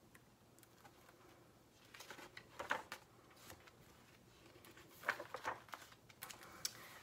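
Pages of an old, worn picture book being opened and turned: faint paper rustles, once about two to three seconds in and again around five to six seconds in.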